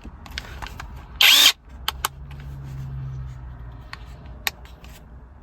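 RobusTrue cordless 1/2-inch electric impact wrench given a short trigger pull, spinning free for about a third of a second about a second in. This is followed by a few sharp plastic clicks from handling and from the forward/reverse selector being switched.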